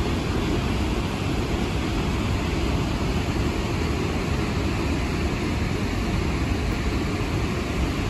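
Steady rushing of Snoqualmie Falls and the river below it, an even noise with most of its weight in the low end.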